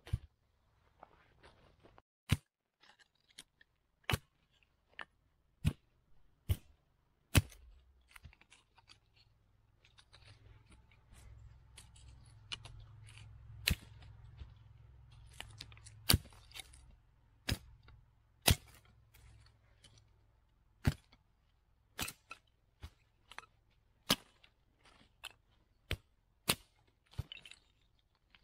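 A series of about sixteen sharp clicks or snaps at irregular intervals of one to two seconds, with a faint low rumble under the middle stretch.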